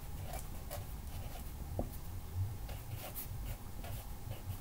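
Sharpie fine-point marker writing on paper: a run of short, faint strokes and taps of the felt tip as words are written.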